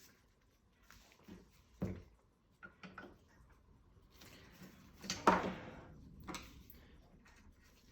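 Scattered light clicks and knocks of small brass and steel clock-movement parts being handled and unthreaded on a workbench.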